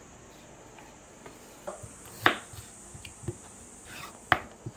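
Kitchen knife cutting a potato against a wooden chopping board: a handful of separate knocks, starting about a second and a half in, the loudest about halfway through.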